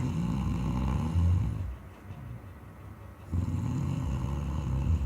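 A sleeping person snoring loudly: two long snores of about two seconds each, the first ending under two seconds in and the next starting a little past three seconds, with a quieter breath between.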